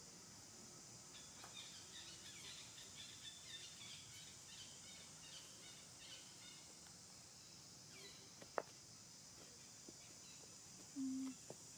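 Faint outdoor ambience: a steady high insect hiss with birds chirping softly, most in the first half. A single sharp click comes about two-thirds of the way in, and a brief low hum near the end is the loudest sound.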